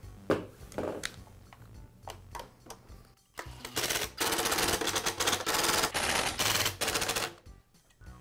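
A few light knocks as the saw's plastic handle is fitted, then a cordless impact driver rattling for about three and a half seconds as it drives a screw to fasten the handle.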